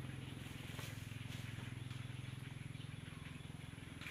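Outdoor ambience carried by a steady low hum, with a thin steady high tone above it and a few faint short chirps.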